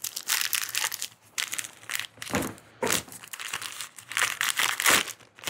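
A small cardboard box being opened and the plastic packaging inside crinkled as parts are taken out, in irregular bursts of rustling.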